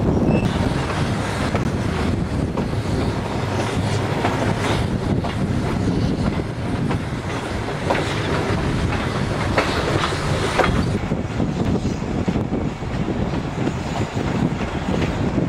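Passenger coaches of a steam-hauled train running along the track: a steady rumble with wheels clicking over rail joints, a few sharper clicks coming in the second half.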